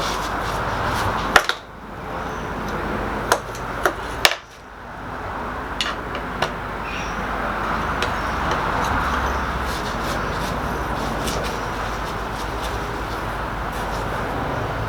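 A few sharp metallic clicks and clinks from hand-forged steel strap hinges being handled and worked on their pivot pins, mostly in the first six seconds. A steady rushing noise runs under them.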